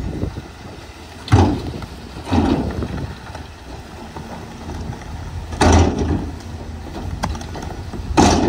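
Rock loads sliding and tumbling out of the raised beds of dump trucks: four heavy crashes of falling rock, over the low running of the trucks' diesel engines.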